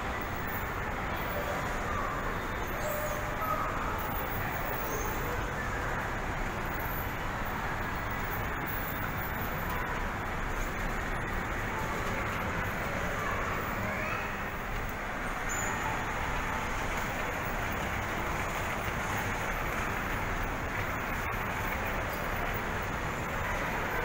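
Steady running noise of a moving escalator mixed with the general background noise of a shopping mall, with faint distant voices.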